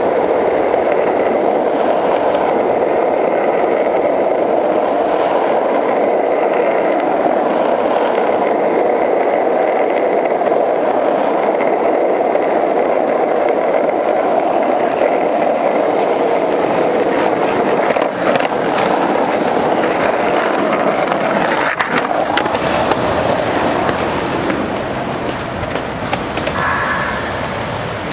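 Skateboard wheels rolling steadily over an asphalt street, a loud constant rumble. A few sharp clacks come past the middle, and the rumble eases a little near the end.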